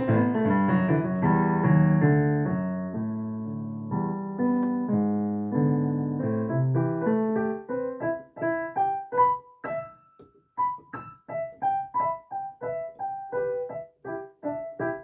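Solo piano music, improvised: held, pedalled chords in the lower and middle register for the first half, then short, detached notes higher up with small gaps between them.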